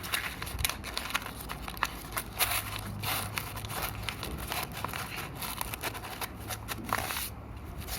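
A sheet of A4 paper being folded and creased by hand, with irregular rustling, crinkling and sharp little crackles that die down near the end.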